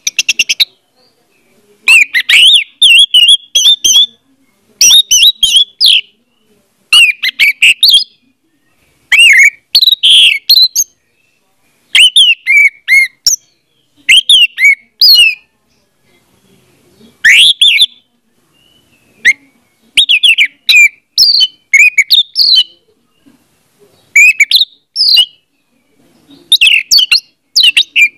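Orange-headed thrush singing: about a dozen short, loud phrases of whistled glides and warbles, each a second or two long, with brief silent pauses between them.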